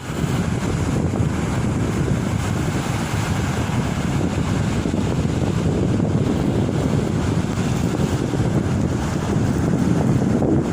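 Sea surf breaking and washing ashore in a steady rush, with wind buffeting the microphone.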